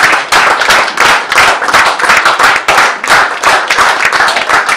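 Audience applauding, with dense, loud hand claps close by.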